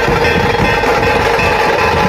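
Music with a plucked string instrument, playing steadily.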